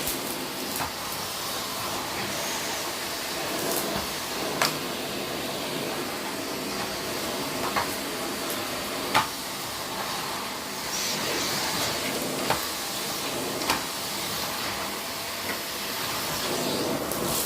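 Vacuum cleaner running steadily, with half a dozen sharp clicks and knocks scattered through.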